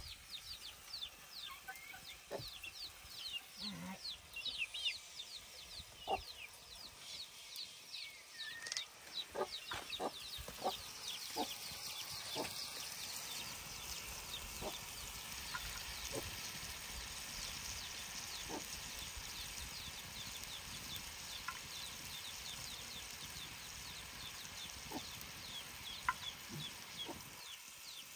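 Chickens cheeping with quick, high, falling peeps throughout, with a few sharp clinks of a utensil on a metal pan in the first half. From about halfway a steady sizzle of frying comes in.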